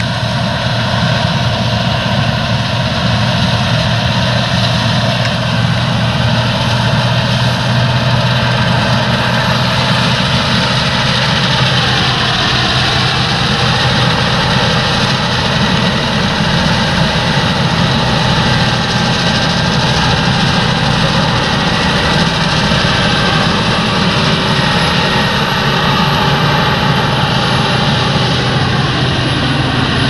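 Claas Lexion 780 combine harvester running under load while cutting wheat: a steady engine drone mixed with the whir of the header and threshing machinery. A mid-pitched whine in the mix sags in pitch about twelve seconds in and again near the end.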